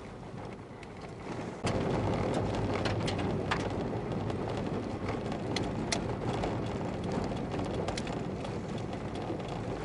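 Car interior road noise while driving on an unsealed road: a steady rumble of tyres on gravel with scattered ticks of small stones, rising suddenly in level a little under two seconds in.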